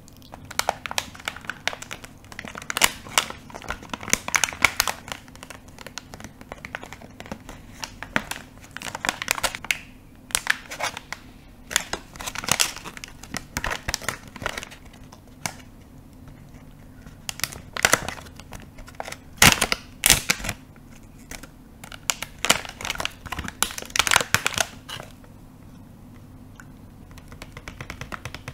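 Plastic and foil packaging crinkling and crumpling in the hands close to the microphone, in irregular runs of crackles with short pauses.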